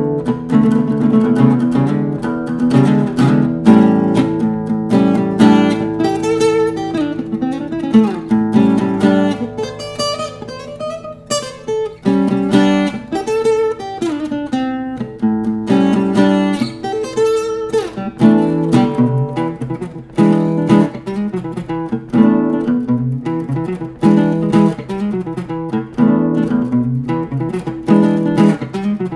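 Acoustic guitar played solo, with picked melody notes over chords and bass notes.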